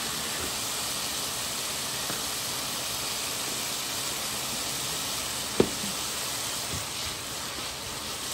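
Julienned potato strips frying in oil in a pan: a steady sizzle, with a single sharp knock about five and a half seconds in.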